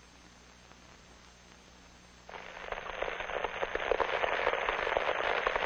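Faint film hiss, then about two seconds in a loud, dense crackling starts abruptly and keeps going.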